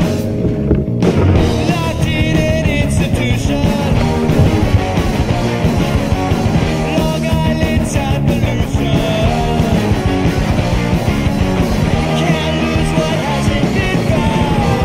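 Loud rock music playing as a soundtrack.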